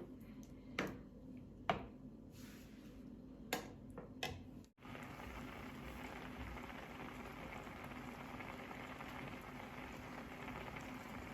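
Cream sauce with chicken and mushrooms coming to a simmer in a pan: a faint, steady bubbling hiss. Four sharp knocks sound in the first few seconds, and the sound briefly cuts out about five seconds in before the steady simmer.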